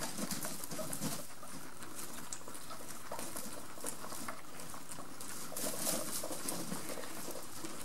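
Guinea pigs pulling at and chewing hay: a soft, continuous rustle of dry hay with many small crunchy ticks from munching.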